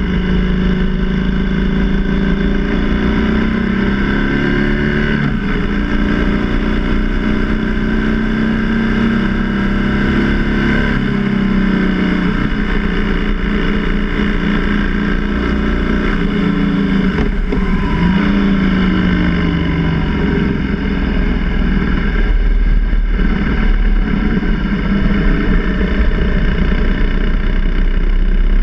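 BMW R1200GS motorcycle's flat-twin engine running under way, heard from on board with steady wind and road noise. The engine note drops a few times as the rider rolls off the throttle, then grows deeper and slightly louder near the end.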